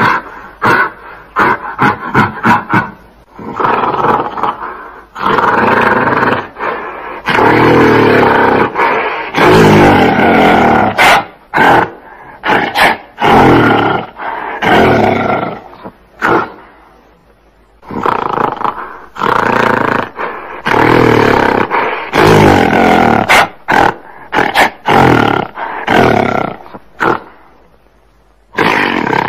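Gorilla roaring and growling in a run of loud, rough calls: short rapid ones at first, then longer calls of a second or two each, with a short pause about two-thirds of the way through before they start again.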